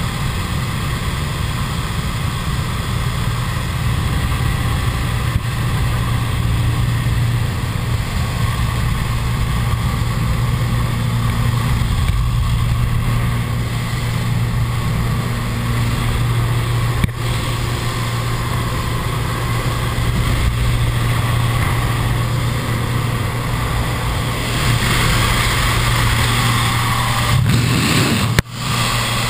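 Small propeller plane's engine droning steadily, heard from inside the cabin. About 25 seconds in, a louder rush of wind joins it as the jump door is opened.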